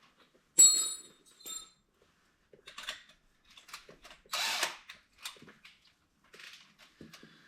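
Metal tool handling between drilling passes: a sharp clink with a brief metallic ring, then scattered clicks, rattles and a short rasp about halfway through, with no steady drill run.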